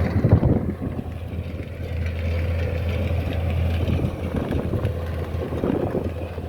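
Engine of a three-row sugar beet harvester rig running steadily with a low hum, with a brief louder rough patch just after the start.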